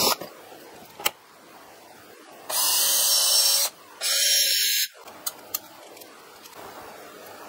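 Electric drill running in two short bursts of about a second each, its bit reaming an angled hole in a plastic cap to taper it; a few sharp clicks in between.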